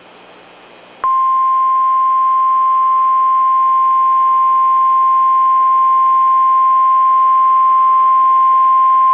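NOAA Weather Radio / National Weather Service 1050 Hz warning alarm tone: a single steady, loud, high beep that starts abruptly about a second in and holds unchanged. It is the attention signal that announces an urgent weather alert broadcast, here a tornado watch.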